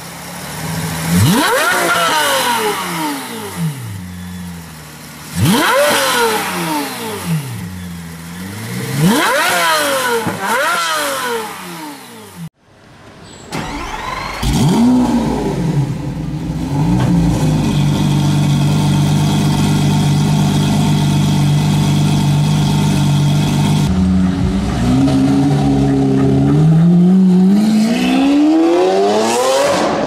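Pagani Zonda F's 7.3-litre V12 blipped four times, each rev climbing and falling back. Then a Lamborghini Aventador LP700-4's 6.5-litre V12 starts with a short flare of revs about halfway through and settles into a steady idle. Near the end it steps up and pulls away, its pitch climbing steadily.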